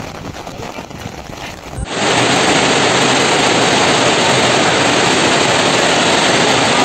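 Rain noise, then from about two seconds in a loud, steady rush of heavy rain driven by strong wind.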